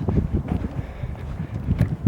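Wind buffeting the microphone in uneven gusts, heard as a low rumble, with a short click near the end.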